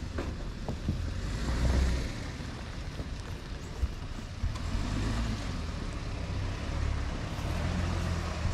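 Toyota Tundra's twin-turbo V6 pulling at low speed as the truck crawls over deep dirt ruts under crawl control at about 3 mph, with tyres working over dirt and small stones. A steady low rumble swells now and then, and there are a few short sharp clicks.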